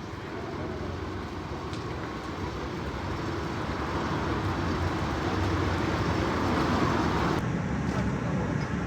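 Street traffic noise with a vehicle engine running, growing louder over several seconds and cutting off abruptly near the end.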